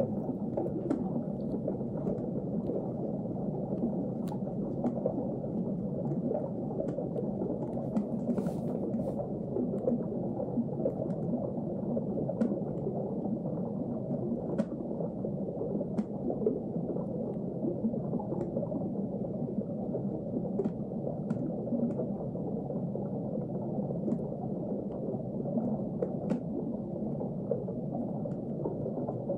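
Underwater ambience: a steady, dull wash of water noise with occasional faint clicks.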